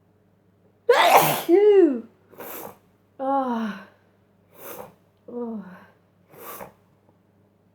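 A loud, sudden sneeze about a second in, ending in a falling voiced sound. Several shorter breathy and falling voiced sounds follow in the aftermath.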